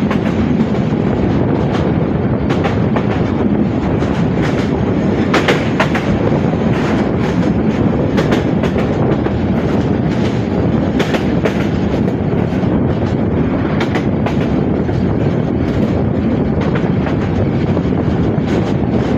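Passenger train running at speed: a steady rumble of the carriage, with irregular sharp clicks as the wheels pass over the rail joints.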